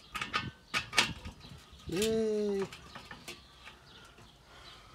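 Light metal clicks and taps as the ash sweep handle and rod are worked into the bottom of a Weber kettle grill's bowl. About two seconds in comes a single steady pitched note lasting under a second, the loudest sound.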